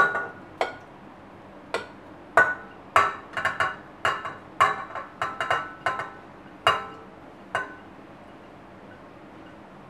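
A white ceramic bowl knocking repeatedly against the rim of a stainless steel stand-mixer bowl to empty out heavy cream: about fifteen irregular ringing clinks, clustered in the middle, stopping a couple of seconds before the end.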